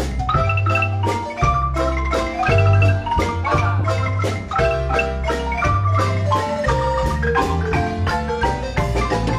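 Marimba playing a melody in several voices over a low bass line, its notes struck in quick repeated strokes.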